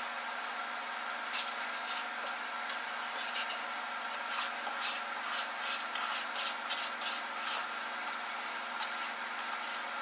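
Spatula scraping thick brownie batter out of a plastic mixing bowl into a glass baking dish, a run of short scrapes and wet slides from about a second in until near the end, over a steady electrical hum.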